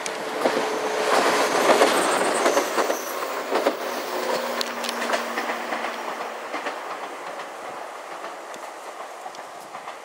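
JR West 113 series 2000-subseries electric train passing close by, its wheels clattering over the rail joints. It is loudest in the first few seconds, then fades as it pulls away.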